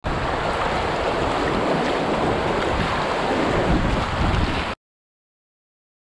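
Rushing, churning water of a grade II river rapid around an open canoe, with wind buffeting the microphone. It cuts off abruptly a little before the end.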